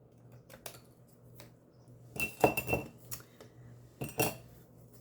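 Metal scissors clicking and clinking as they are handled and set down, in two short clusters with a brief high metallic ring each time, after a few lighter clicks.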